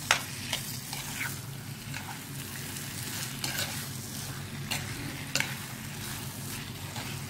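Prawns in a thick tomato-onion masala sizzling in a pan while a spoon stirs and mixes them, with sharp clicks and scrapes of the spoon against the pan every second or so, the sharpest right at the start.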